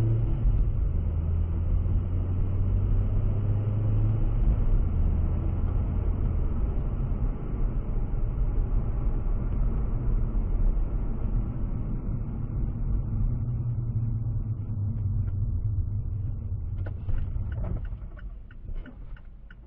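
Steady low rumble of a moving car's engine and tyres on the road, heard inside the cabin. It quietens about two seconds before the end, with a few faint clicks just before.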